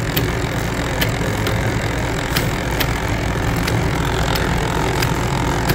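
Small geared demonstration machine running: an electric motor driving a gearbox, shafts, bevel gears, a roller chain and a timing belt, a steady low hum with light clicks repeating every half second or so.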